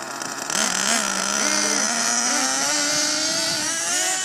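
Small nitro engine of an HPI Savage X 4.6 RC monster truck, revving and accelerating away, a high buzzing whine that steps up in level about half a second in, its pitch rising and wavering with the throttle.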